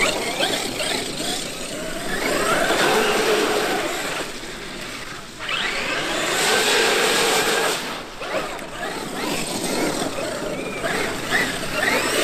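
Electric motor whine from a Traxxas X-Maxx RC monster truck's VXL-8s brushless system. It comes in three bursts of acceleration, each about two seconds long, over a constant rushing noise.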